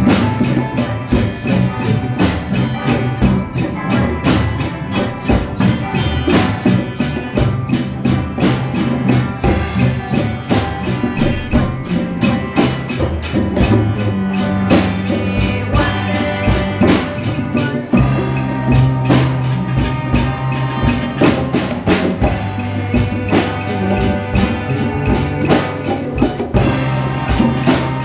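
A young rock band playing live: electric bass holding low notes, electric guitar, and djembe hand drums with a drum kit keeping a busy, steady beat.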